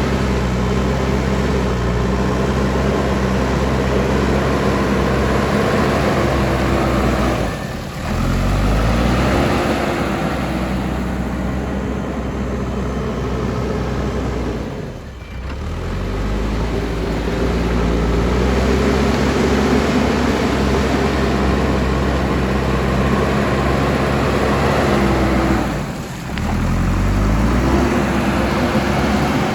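Diesel engine of a JCB backhoe loader running hard under load. It briefly drops off three times and revs back up with a rising pitch each time.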